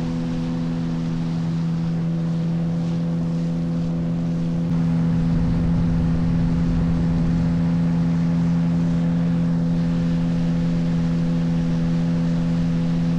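Motor boat's outboard engine running at a steady cruising speed with an even, unchanging pitch, a little louder from about five seconds in.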